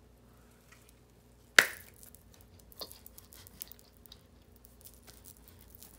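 Eating sounds close to the microphone: one sharp, loud bite-snap about one and a half seconds in, then a few faint chewing clicks as a McDonald's sandwich is eaten.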